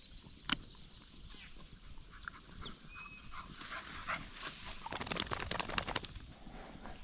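Faint yelps of hound puppies working a rabbit's track. A cluster of rustling near the end as a puppy pushes through tall grass, with an insect trilling early on.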